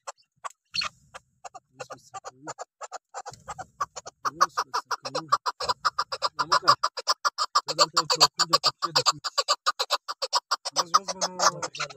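Chukar partridge calling: a long, rapid series of clucking notes that grows louder about four seconds in.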